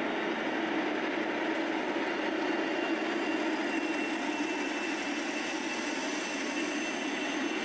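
A heavy engine running steadily: an even drone with a faint high whine that rises slightly about halfway through.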